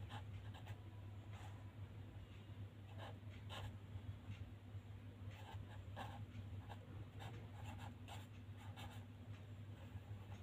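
Marker pen writing on ruled paper: faint, irregular strokes and scratches over a low steady hum.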